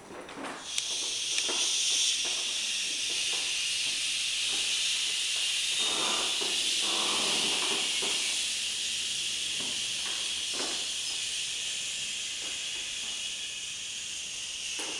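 The qigong liver healing sound: people breathing out a long, steady "shhhh". It starts about a second in and fades slowly near the end.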